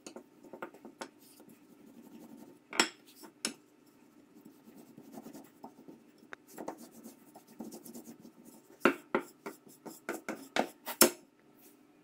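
Wooden rolling pin rolling out dough on a floured silicone mat: a soft rubbing with scattered knocks and clicks, the loudest about three seconds in and twice near the end.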